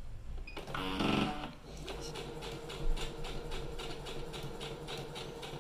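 Pfaff Smarter 260c computerised sewing machine started with its Start button and sewing a straight stitch at its slowest speed setting: a short rise as the motor starts about a second in, then a steady motor hum with an even needle clatter of about five stitches a second.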